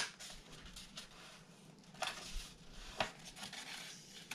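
Construction paper being handled and folded by hand: soft rustling and scraping of the sheet on the table, with a sharp tick at the start and louder rustles about two and three seconds in.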